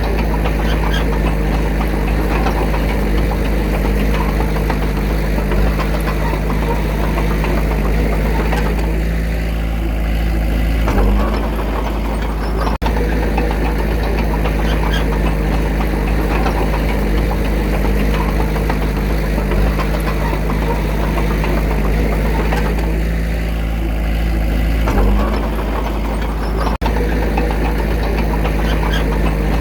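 Diesel engine of an earthmoving machine running steadily with a heavy low rumble, its note shifting briefly about 11 and 25 seconds in.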